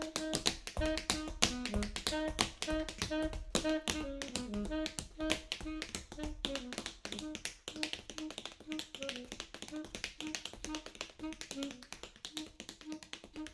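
Tap shoes striking a wooden floor in fast, dense rhythms over a saxophone playing short detached notes: a repeated note broken by quick falling runs. The taps grow softer after about halfway.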